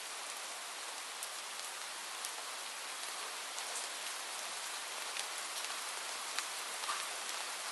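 Steady rain falling: an even hiss with scattered sharper ticks of individual drops striking a surface.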